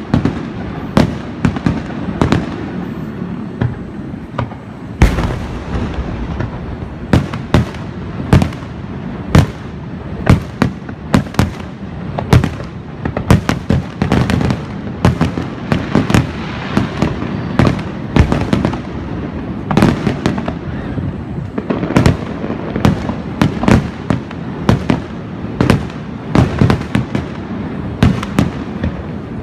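Aerial fireworks shells bursting one after another, a string of sharp bangs at irregular intervals, several a second at times, over a continuous noisy background of further bursts and crackle.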